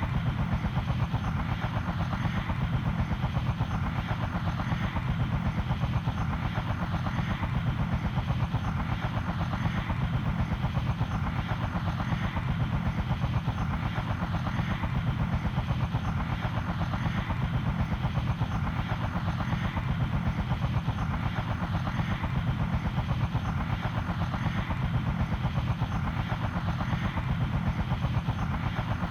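Helicopter rotor beating fast and evenly, with a steady level throughout.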